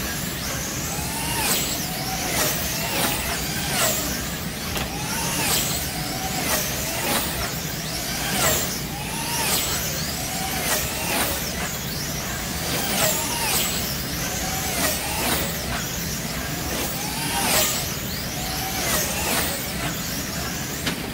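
Wing slot cars racing on a large multi-lane track: their small electric motors whine and swell in pitch as the cars sweep past again and again, about once or twice a second.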